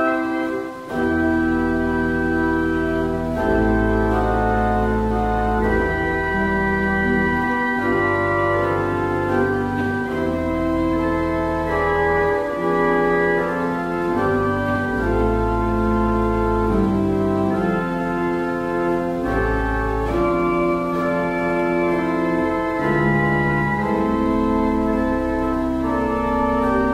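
Church pipe organ playing slow, held chords over deep pedal notes that change every few seconds, with a short break about a second in.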